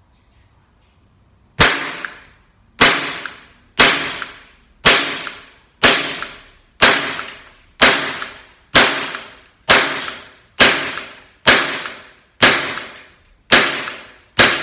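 WE Glock 19 gas blowback airsoft pistol firing single shots, starting about a second and a half in and going on at about one a second, fourteen shots in all. Each shot is a sharp crack of gas and slide cycling, with a short fading ring.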